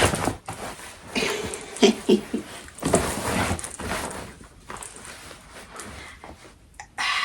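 Clothing rustling as tight trousers are pulled on, with a few short grunts of effort.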